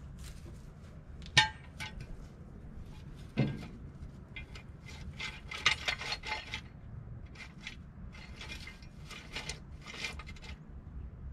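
Steel jack stands being set under the raised front of a car. There is a sharp, ringing metal clank about a second in and a duller knock about two seconds later, then runs of short metallic clicks and scrapes as the stands' ratchet posts are raised.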